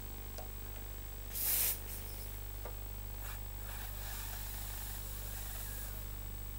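Spotting-table steam gun hissing: one short, loud blast about a second and a half in, then a softer, longer hiss from about three and a half seconds, as steam melts sodium perborate powder bleach into a stain in the fabric.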